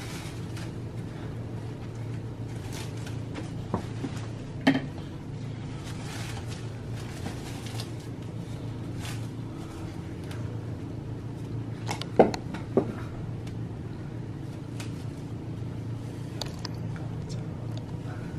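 Plastic cling wrap being unrolled and crinkled, with a few sharp clicks and knocks, the loudest about five seconds in and again about twelve seconds in, over a steady low hum.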